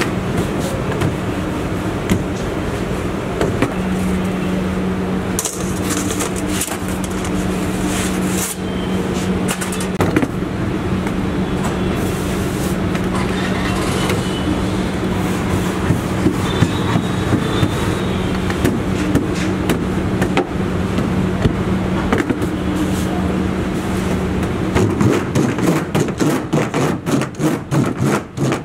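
Steady machine hum and street noise, with scattered soft knocks of dough being handled on a steel counter. Near the end come rapid, even pats, about four a second, as fingertips dock the stretched pizza dough against the floured counter.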